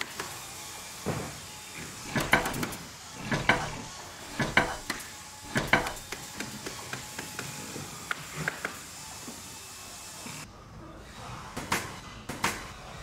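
Repeated wooden knocks and clicks, the sound of boards being set down and fixed: a sharper knock roughly once a second for several seconds, then lighter scattered clicks and a few more knocks near the end.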